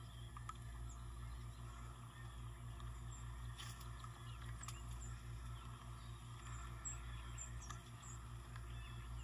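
Quiet outdoor ambience in a field: a few faint, short high chirps over a low steady hum, with an occasional faint tick.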